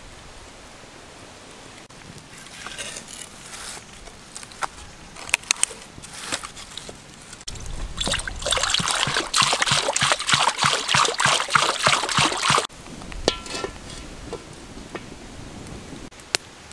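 Water poured into a metal wok, splashing and sloshing, loud for about five seconds in the middle and cutting off abruptly.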